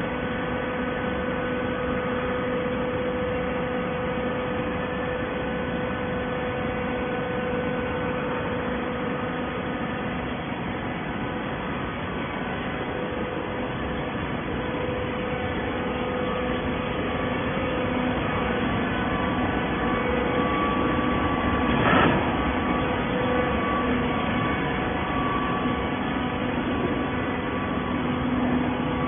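Horizontal hydraulic baler running with a steady hum from its hydraulic power unit and motor. A single sharp clank comes about three quarters of the way through.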